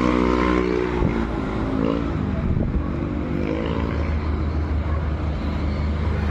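A motor engine running steadily, with its pitch shifting up and down a couple of seconds in.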